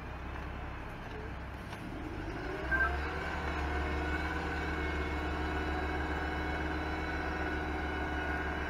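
Heavy diesel engines of an asphalt paver and a dump truck unloading into it, running steadily; about two and a half seconds in the engine revs up, with a brief sharp noise, and holds at a higher, louder speed.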